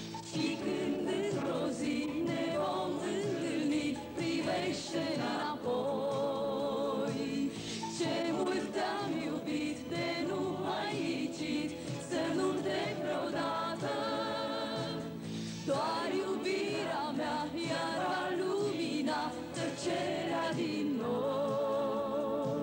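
A woman sings a Romanian pop song with vibrato into a microphone, accompanied by a light-music orchestra and a backing vocal group.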